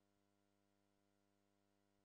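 Near silence: the soundtrack of a silent film, with only a very faint steady hum.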